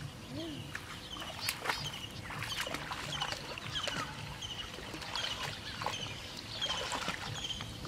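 Small birds chirping in short repeated calls, with the splash and swish of legs wading through shallow, weed-covered water.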